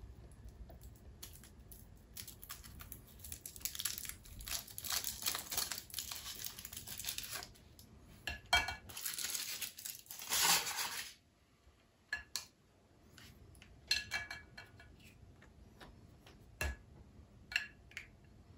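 Kinder Surprise egg's foil wrapper crinkling and tearing for several seconds, loudest in a burst about ten seconds in. Then a series of light, sharp clicks and knocks.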